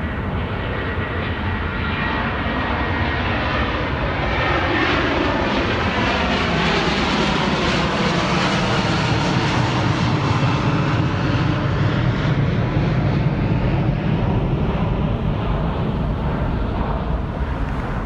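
Jet engines of a Lufthansa widebody airliner at takeoff thrust, roaring as it climbs out overhead. The roar builds to its loudest around the middle as the plane passes over, with a falling sweep in the sound, then eases off near the end as it heads away.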